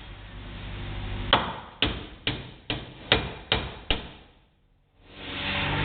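A hammer striking the front suspension, about seven sharp blows roughly two a second, knocking a coil spring that is just a hair off from seating. A steady hum starts near the end.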